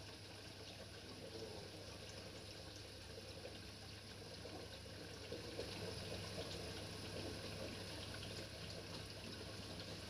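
LG D1450LF1 dishwasher running, with water filling and trickling inside the tub over a steady low hum; it grows a little louder about halfway through.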